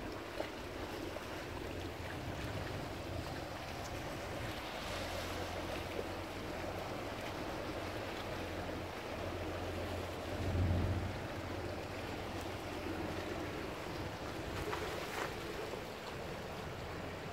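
Seaside ambience: steady wind on the microphone over water washing against the rocks, with a low rumble that swells briefly about ten seconds in.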